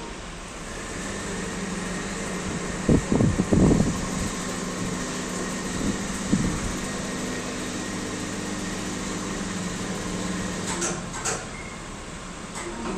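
Machinery running with a steady hum carrying a few held tones, with a cluster of loud knocks about three seconds in, another knock about six seconds in, and sharp clicks near the end.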